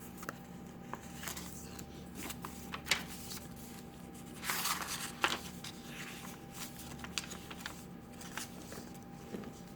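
Paper pages and cards of a handmade junk journal being handled and turned: scattered soft paper ticks and taps, with a louder page-turning rustle about halfway through.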